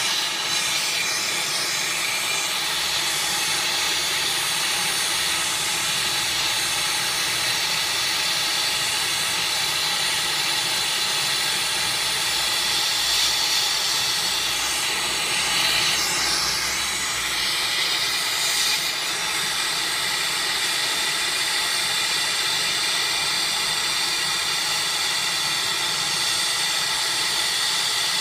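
Brazing torch flame hissing steadily while a leak in an air-conditioner coil is soldered, getting briefly brighter and harsher about halfway through.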